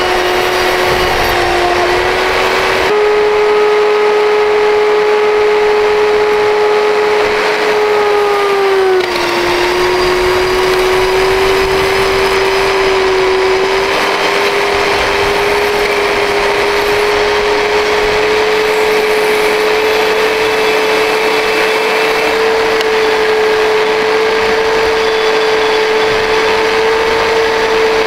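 Dirt Devil Ultra MVP vacuum cleaner motor running with a loud, steady whine. Its pitch drops suddenly about nine seconds in, then slowly climbs back.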